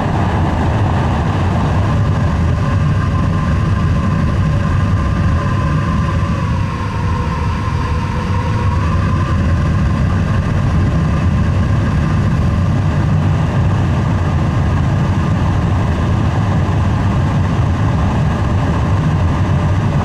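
Air blower of a homemade drum blast furnace running steadily: a low rushing rumble with a faint whine that dips briefly about seven seconds in. The furnace is being blown through before it is lit.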